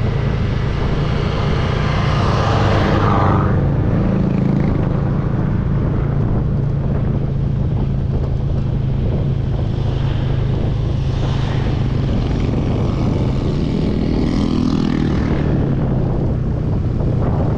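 An engine running steadily, a low drone that holds one pitch.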